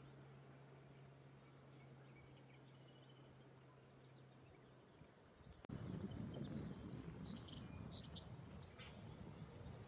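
Outdoor ambience with faint birds chirping now and then. A low steady hum fades out about halfway through. A sudden switch brings in a louder low rumble of breeze on the microphone, with several short, high bird chirps.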